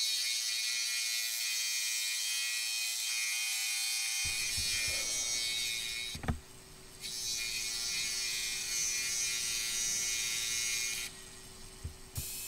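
A 16-inch scroll saw running and cutting a small wooden lure blank, with two brief pauses, about six seconds in and near the end.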